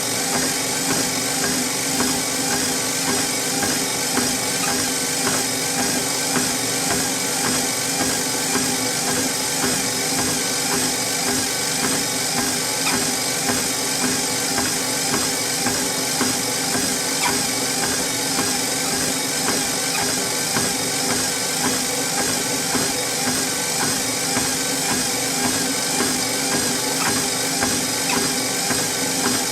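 Treadmill with a person walking on it: a steady motor hum and belt whir, with a regular beat of footfalls on the belt.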